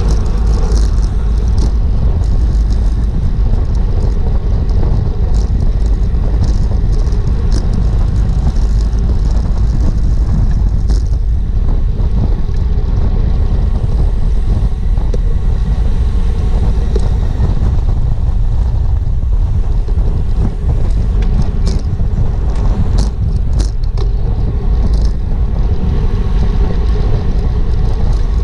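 Loud, steady wind rumble on an action camera's microphone while riding at race speed on a bicycle, with scattered short clicks.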